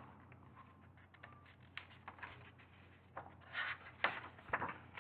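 Paper pages of a picture book rustling and flapping as a page is turned, in a series of short scrapes and soft flaps, loudest a little past the middle.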